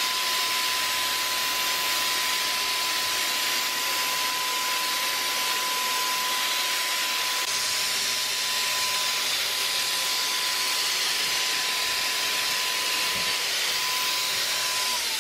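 Wagner FLEXio 3000 HVLP paint sprayer spraying paint: a steady rush of air and paint mist with a steady high whine from its turbine motor. Near the end the motor is switched off and the whine starts to fall.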